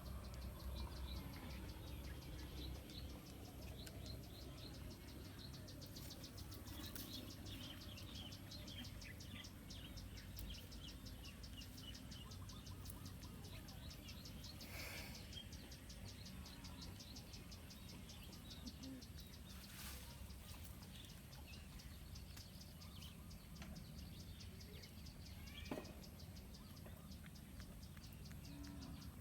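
Insects chirring steadily outdoors, a fast, even high-pitched pulsing, with a low rumble underneath and a few short clicks, the sharpest near the end.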